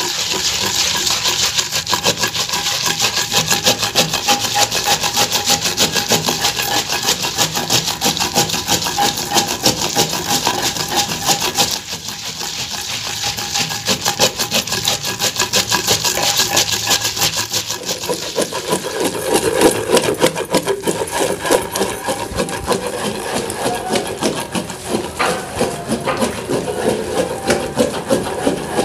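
Long wooden pestle pounding and grinding soaked dried red chillies in a metal mortar: a continuous run of wet, gritty strokes as the chillies are worked with salt and water into a paste.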